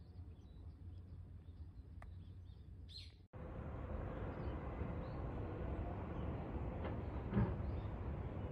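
Outdoor ambience: faint bird chirps over a low steady rumble. About three seconds in the sound cuts out for an instant and returns louder and noisier, with a short bump near the end.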